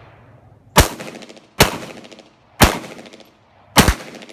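A firearm fired four times at uneven intervals, each shot followed by a short echoing decay.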